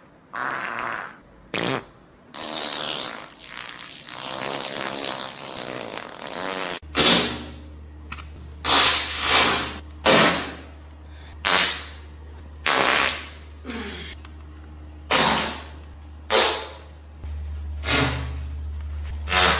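A series of farts: a few short ones, then a long drawn-out one, then about ten short loud blasts roughly a second apart. A steady low hum runs under the second half.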